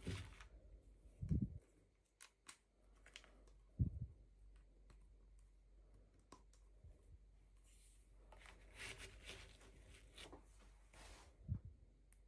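Faint handling of toy packaging: scattered small clicks and taps, three soft thumps, and a stretch of rustling and tearing from about eight to eleven seconds in.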